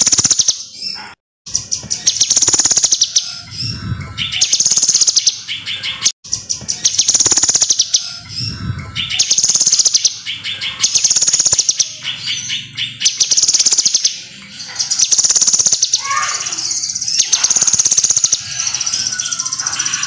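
Caged kinoi (blue-masked leafbird) singing loud, fast trilled phrases high in pitch, one after another every second or two. Two very short dropouts to silence break the song, about one and six seconds in.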